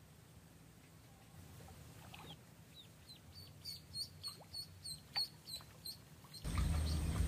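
Duckling peeping: a run of short, high, falling peeps, about three a second, getting louder midway. Near the end a louder, steady background noise cuts in suddenly.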